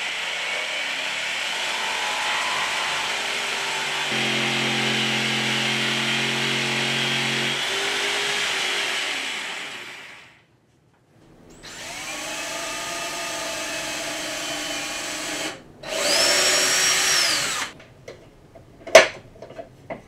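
Several separate runs of electric power tools working wood, among them a variable-speed jigsaw cutting a board. A brief break comes about ten seconds in. The last run rises in pitch, holds and falls as the motor spins up and down, and a single sharp click follows near the end.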